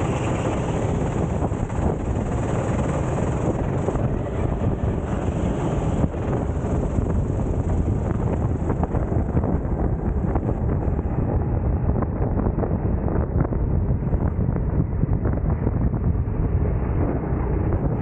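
Go-kart running at racing speed, heard from its onboard camera: heavy wind buffeting on the microphone over the kart's engine and road noise.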